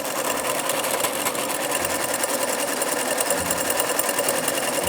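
Old SINGER sewing machine running fast and steadily, its needle stitching in a rapid, even rhythm as a seam is sewn.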